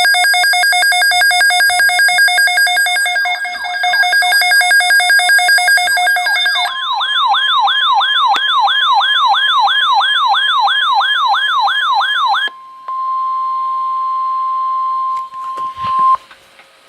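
Emergency alert tones for a tornado watch on NOAA Weather Radio: a loud, rapidly pulsing electronic buzz for about six and a half seconds, then a fast warbling siren, about three sweeps a second, for about six seconds. After a brief gap comes a steady single tone, the 1050 Hz weather radio alert tone, for about three seconds.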